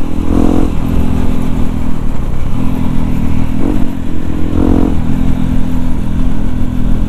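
Yamaha WR155R's single-cylinder four-stroke engine running under way, heard from the rider's helmet with wind rumbling on the microphone. The engine note swells briefly twice, about half a second in and near five seconds.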